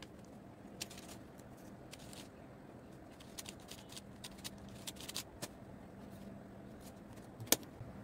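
Plastic Rubik's cube layers being turned by hand, clicking in irregular short runs, with one sharper click near the end.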